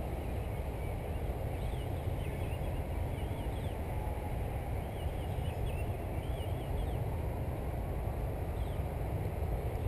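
Wind buffeting the microphone in a steady low rumble, with birds chirping in short repeated bursts over it.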